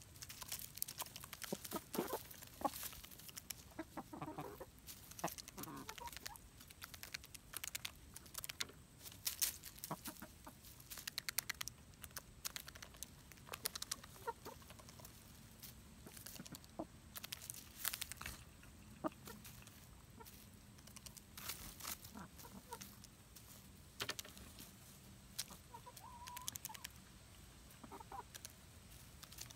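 19-week-old Buff Orpington chickens pecking at a pile of sunflower seeds: a quick, irregular run of sharp pecking clicks, with soft clucks now and then.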